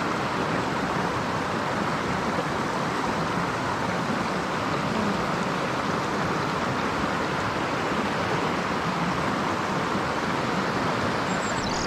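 Mountain stream water rushing steadily over rocks, a constant even hiss with no change.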